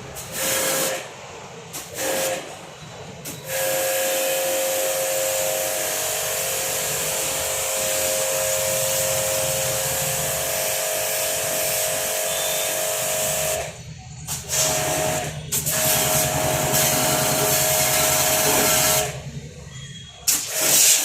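High-pressure jet pump spraying water onto a window air conditioner during cleaning: a loud hiss with a steady whine from the pump, switching on and off in bursts, with one long spray of about ten seconds.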